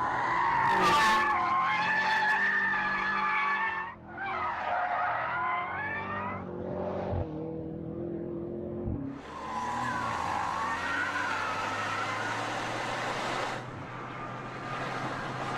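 2018 BMW M5 F90 driven hard, its twin-turbo V8 running under load while the tyres squeal with a wavering pitch; the engine note breaks briefly about four, seven and nine seconds in, after which tyre and road noise take over.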